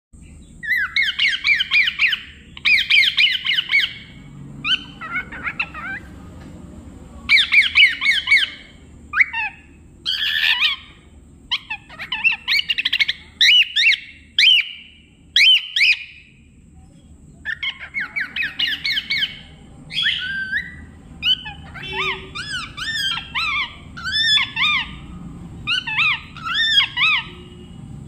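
Cockatiel chirping and warbling in quick, wavering phrases, in bursts of a second or two with short pauses between.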